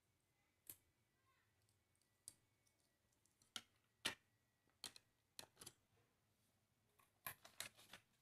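Plastic parts of a Tomica toy car-wash playset clicking as they are handled and fitted onto the plastic base: about a dozen sharp clicks at uneven intervals, the loudest about four seconds in, with a quick cluster near the end.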